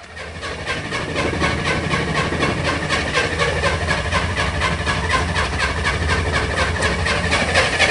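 Corvair Spyder turbo's air-cooled flat-six turning over on the starter without firing, in an even cranking rhythm of about five beats a second. It is a cold no-start, cranked while oil pressure and fuel pump pressure build.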